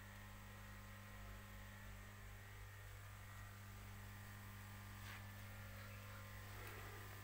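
Faint steady low hum, with no other clear sound.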